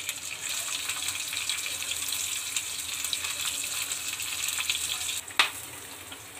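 Green chillies and mustard seeds sizzling in hot ghee in a small tadka pan: a steady hiss with small pops. About five seconds in there is one sharp click, and the sizzle drops off as the pan is lifted off the flame.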